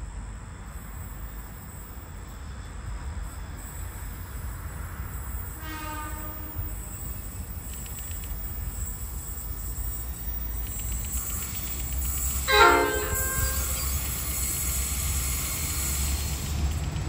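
Four 81 class diesel-electric locomotives pulling a freight train away from a standing start: a low engine rumble that grows louder as they come closer. The locomotive horn sounds twice, a short blast about six seconds in and a louder one a little past halfway.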